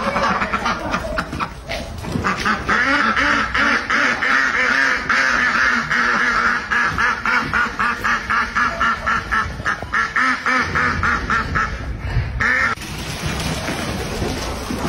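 A flock of domestic ducks quacking rapidly, many loud calls overlapping in a fast stream. Near the end the quacking stops and a steadier noise takes over.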